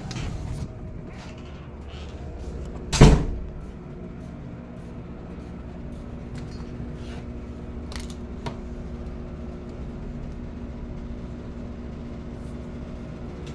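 A steady low hum with a few faint clicks, and one loud thump about three seconds in.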